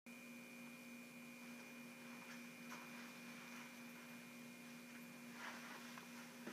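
Near silence: a faint steady hum with a thin, higher steady tone above it, over light hiss.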